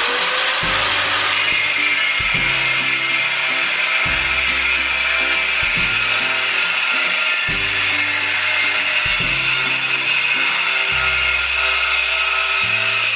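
Angle grinder with a turbo diamond blade cutting through ceramic tile: a steady, loud grinding whine, the motor settling at full speed in the first moment.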